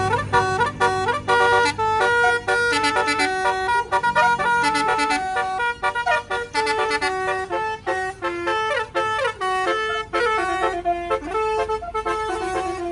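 A tourist bus's multi-tone musical horn playing a fast tune: a continuous run of short, stepped horn notes. A low engine hum sits under the first couple of seconds.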